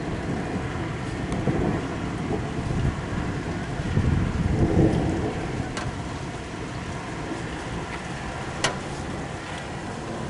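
Rolling thunder from a thunderstorm: a low rumble that swells to its loudest about four to five seconds in, over a steady rushing noise, with a few sharp ticks.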